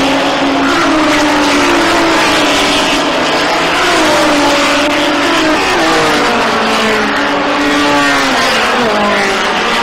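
A pack of touring-car racing engines running together at high revs. Several engine notes overlap, each rising and falling as the cars accelerate and change gear.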